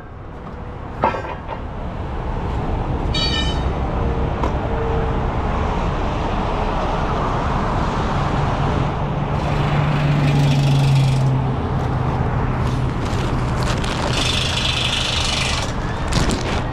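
Heavy truck engines running steadily amid road traffic noise, with a low engine note swelling and easing off midway and two stretches of high hiss, like air being let out of a truck's air system. A brief high beep sounds about three seconds in.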